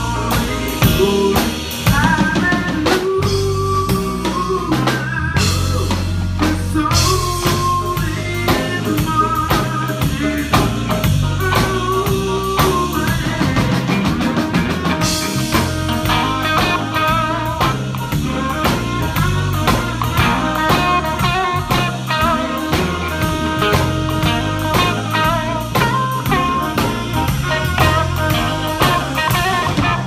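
Live blues band playing: electric guitar and drum kit with a steady beat, and a saxophone carrying the melody.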